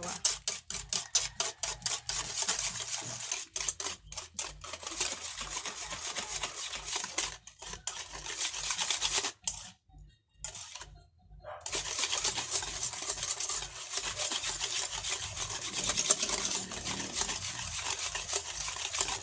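A whisk beating eggs, sugar and oil in a mixing bowl: quick, even strokes clicking and scraping against the bowl, stopping briefly twice about halfway through before going on.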